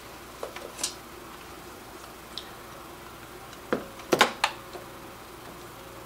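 Hand tools being picked up and handled: a few light clicks in the first second, then a cluster of sharper clicks and knocks about four seconds in, over a faint steady hum.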